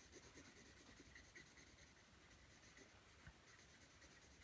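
Faint scratching of a graphite pencil shading on drawing paper in quick, repeated strokes.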